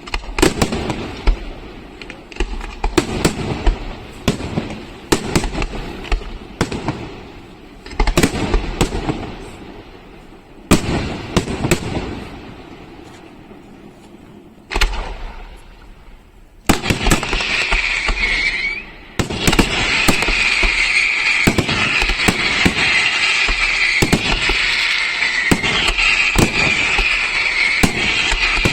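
Aerial fireworks bursting in a display: sharp, loud bangs one after another, some with a crackling tail. About two-thirds of the way through, the bursts merge into a dense, continuous crackling barrage with a high, shrill tone over it.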